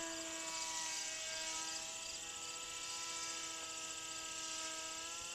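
Electric motor and propeller of an RC Aerobird plane in flight, a brushed ferrite motor turning a 6x3 prop. It gives a steady buzzing whine with small shifts in pitch.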